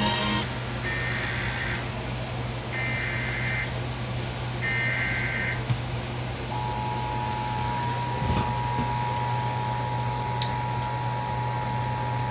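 Emergency Alert System broadcast tones: three short bursts of the digital SAME header, about a second each with a second between, then the steady two-tone EAS attention signal starting about six seconds in and holding.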